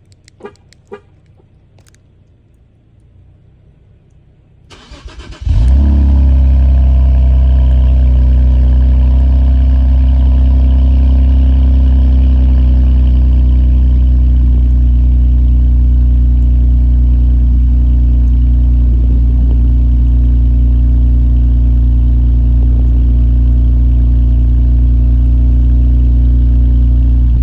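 Infiniti Q50 Red Sport's twin-turbo 3.0-litre V6 starting about five seconds in, breathing through an MBRP cat-back exhaust, then idling steadily and loudly with a low drone. A few faint clicks come before it starts.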